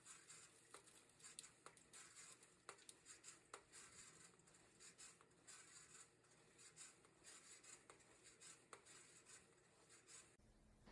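Near silence: faint scratchy rustling with scattered light ticks, irregular rather than rhythmic.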